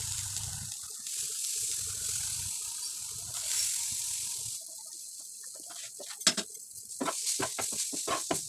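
Green chillies in masala frying in a non-stick pan: a steady sizzle, then a sharp knock and quick scraping strokes of a spatula against the pan as they are stirred.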